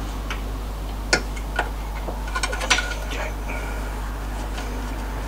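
Light metallic clicks and taps of an MGB gearbox dipstick being worked in its tube on the transmission tunnel during an oil-level check. There are two single clicks about a second in, then a quick cluster of clicks with a brief ring a little later.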